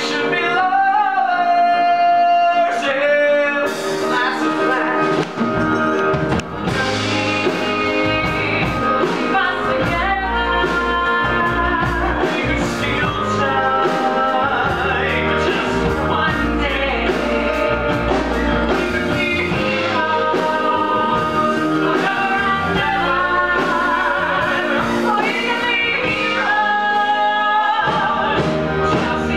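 A man and a woman singing a love-song duet from a stage musical, live, over instrumental accompaniment, with long held notes. The deeper bass of the accompaniment comes in about five seconds in.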